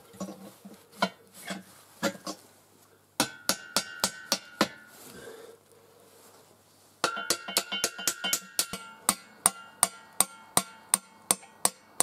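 Hammer blows on steel, each ringing: a few light knocks, a run of about six hard blows a few seconds in, then steady blows about two to three a second from about seven seconds on, knocking a trailer's bogie assembly loose.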